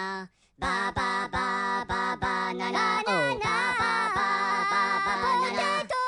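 Outro music with a steady pulsing beat; after a brief break just after the start, a singing voice comes in about halfway through.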